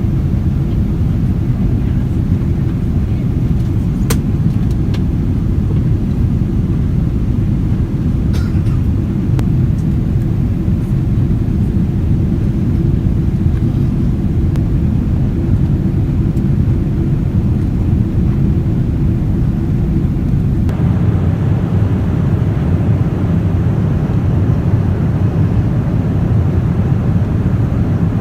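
Steady deep rumble of a Boeing 777-300ER's engines and airflow heard inside the economy cabin, with a couple of light clicks in the first few seconds. About two-thirds of the way through, the noise shifts and takes on more hiss.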